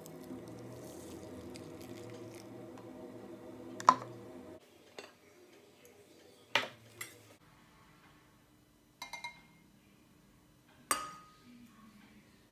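Metal ladle clinking against glass and ceramic bowls while silken tofufa is scooped, with several sharp clinks, some ringing briefly. A steady hum runs under the first few seconds and cuts off suddenly.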